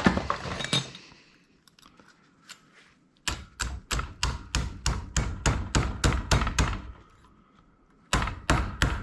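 Rapid hammer blows on metal, about four a second, pounding the end out of a stripped hard-drive part. There is a long run of strikes in the middle, a pause, then another run near the end.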